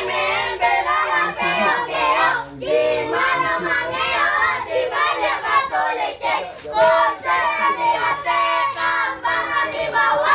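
A group of children singing a game song together.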